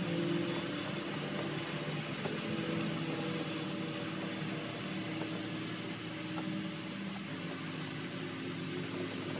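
An engine running steadily at idle: a low, even hum made of several steady tones, dipping slightly in pitch about seven seconds in.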